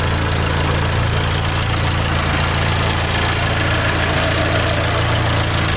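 Fiat Palio Fire 8-valve four-cylinder engine idling steadily.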